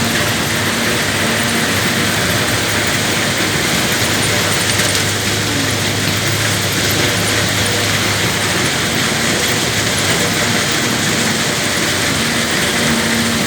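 Heavy earthmoving machinery, a diesel engine running steadily, with a low hum under a constant loud hiss.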